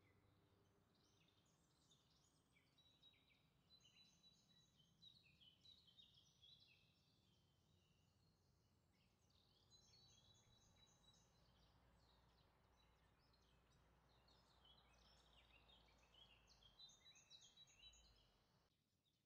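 Near silence with faint, high bird chirping, many short calls, which stops just before the end.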